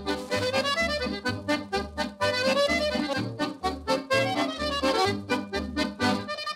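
Upbeat instrumental background music with a bouncing bass line that alternates notes about twice a second.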